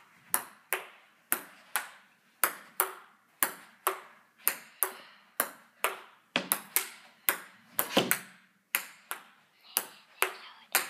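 Table tennis rally: a ping-pong ball clicking sharply off paddles and the table, about two hits a second in a steady back-and-forth without a break.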